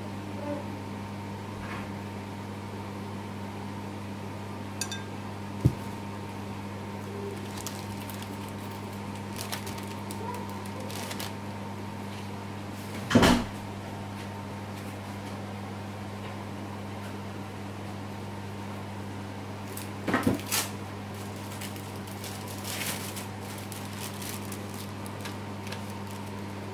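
A steady low hum with a few scattered knocks and clatters of kitchen things handled on a table, the loudest about halfway through and a quick double knock about twenty seconds in.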